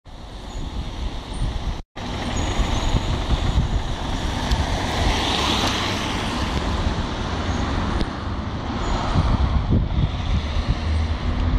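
Steady outdoor rumble of traffic and heavy-vehicle engines, with wind buffeting the microphone. The sound cuts out completely for an instant about two seconds in.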